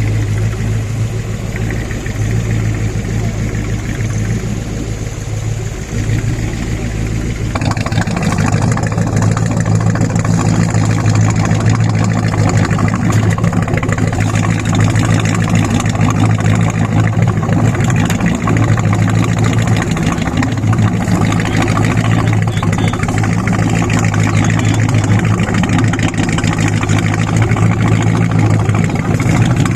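A 283 Chevy V8 inboard marine engine (Crusader conversion) running steadily in a 1962 Century Resorter boat. About a quarter of the way in, the engine sound suddenly turns fuller and harsher and a little louder, then holds steady.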